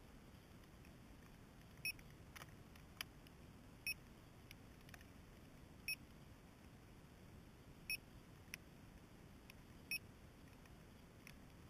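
Short, high electronic beep repeating every two seconds, about six times, from the landed quadcopter's onboard beeper, over a faint steady hiss. A few fainter ticks fall between the beeps.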